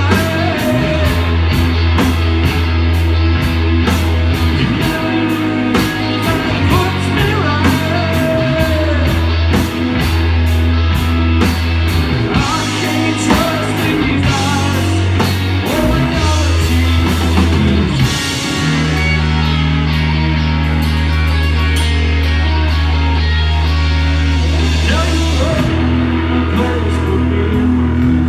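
Live rock trio of electric guitar, bass guitar and drum kit playing loud and fast, with a singing voice. About two-thirds through, the drumming thins out while the bass holds long low notes, and the full band comes back in near the end.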